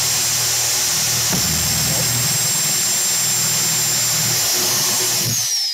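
Electric hand drill boring through a PVC pipe with a twist bit: a loud, steady high motor whine over the noise of the bit cutting plastic, which winds down in pitch and stops near the end.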